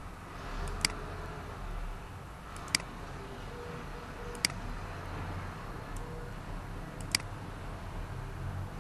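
Four sharp computer-mouse clicks a couple of seconds apart, each a quick press and release, over a low steady hum.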